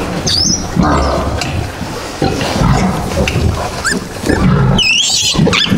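A sow grunting over and over while her newborn piglets suckle, with high piglet squeals just after the start and a cluster of them about five seconds in.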